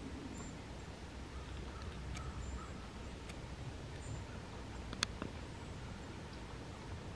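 Wind rumbling on the microphone, with a few faint high chirps, light ticks and one sharper click about five seconds in.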